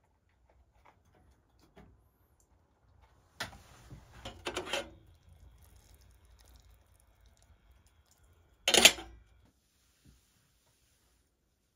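Aluminium camping kettle handled on the metal top of a wood stove: a rattling clatter of metal about three and a half seconds in, then a louder single clank near nine seconds as the kettle is lifted off the stove.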